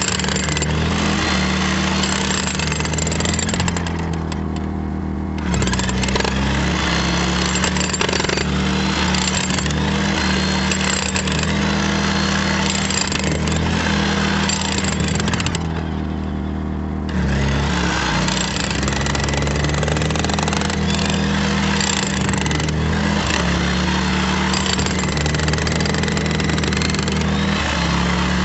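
A Predator portable generator's engine runs steadily under load while a corded electric power tool chips and cuts into the concrete footer. The tool stops twice for about a second and a half, leaving only the generator running.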